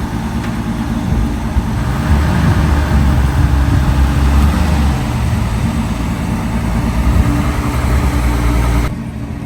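1965 Ford Mustang's engine running as the car drives. It gets louder about two seconds in and drops off sharply near the end.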